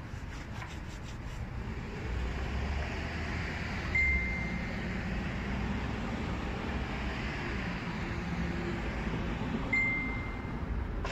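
Steady low background rumble and hiss, with two short, high, flat beeps about six seconds apart.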